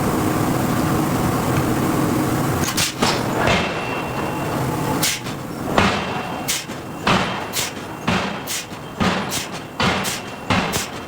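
Hydraulic forging hammer striking hot steel in a steady run of heavy blows, about two a second, starting a little under three seconds in after a steady machine hum.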